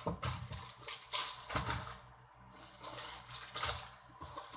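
Packaged groceries being handled and moved around in a box: plastic packets rustling, with several short knocks as items are set down.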